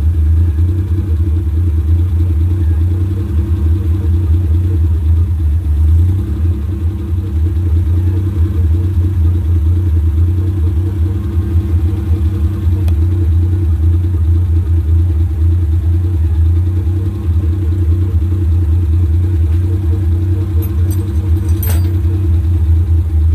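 An engine running steadily at idle, a constant low drone with no change in speed. A brief metallic clink comes near the end.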